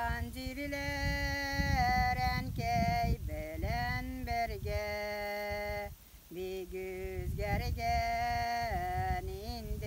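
A woman singing a Tatar folk song in long held notes that glide between pitches, with a short break for breath about six seconds in. A low rumble runs underneath.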